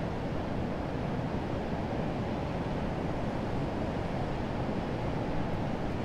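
Urriðafoss waterfall on the Þjórsá river, its falling and rushing water making a deep, steady, unbroken rush.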